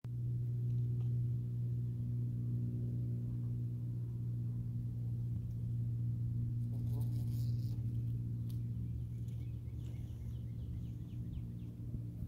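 Bumble bee buzzing close to the microphone, a steady low hum that fades slightly near the end. A short rustle of leaves comes about seven seconds in.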